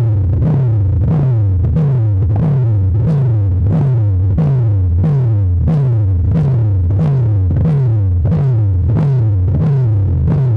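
Electronic DJ music played loud through a big sound-box system: a heavy synth bass note sliding downward in pitch, repeating about twice a second.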